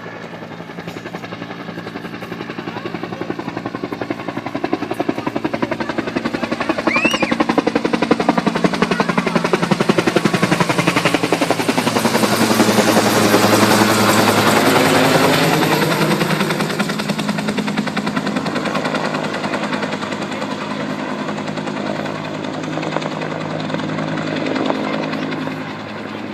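Helicopter main rotor beating fast and steadily, growing louder to a peak about halfway through and then fading somewhat as it passes.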